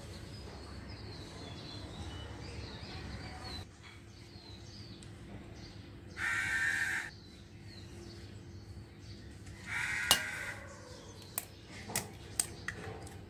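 A crow cawing twice, about six seconds in and again about ten seconds in, with small birds chirping faintly. Near the end come a few sharp taps and cracks as an egg is cracked over the bowl.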